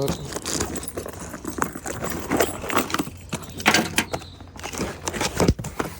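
A new brake rotor being unpacked by hand from its packaging: irregular rustling with scattered knocks and clicks.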